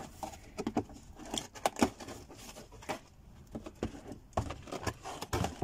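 Cardboard box being handled and opened: irregular clicks, taps and scrapes of the flaps and packaging, with a couple of dull thumps near the end.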